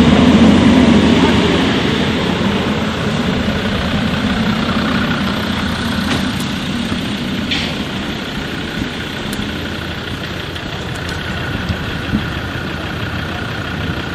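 A vehicle's engine running steadily, loudest in the first couple of seconds and then easing off a little.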